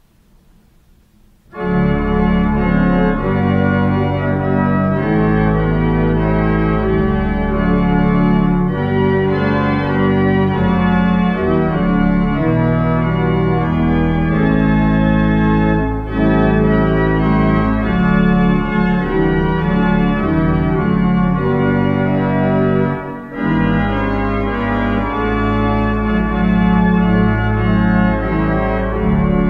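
Church pipe organ playing the closing voluntary: sustained chords over deep bass notes. It comes in about a second and a half in and pauses briefly between phrases about three quarters of the way through.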